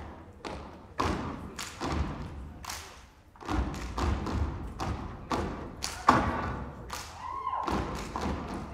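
Step team stepping in unison: sharp stomps and claps, about two to three a second, with a short pause about three seconds in.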